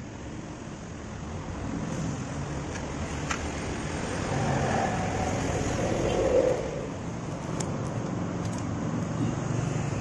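Road traffic going past, swelling and fading in the middle, with a few small sharp clicks as a motorcycle's plastic handlebar switch housing is unscrewed and pulled apart.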